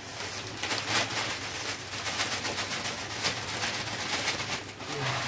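Dry vermicelli pouring from a crinkling plastic packet into a steel plate, a continuous rustle of many small ticks.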